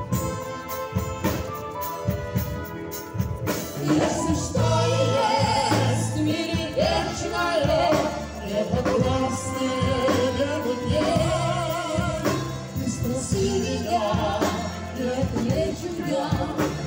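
Live wind band of clarinets, saxophones and trombones playing a tune with a steady beat; about four seconds in, a singer's voice comes in over the band.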